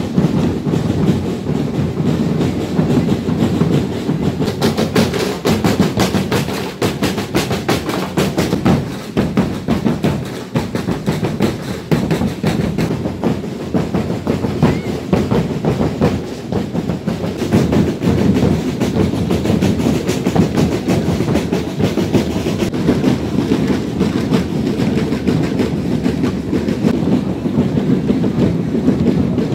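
Ati-Atihan street-parade drum band beating a loud, driving, unbroken rhythm.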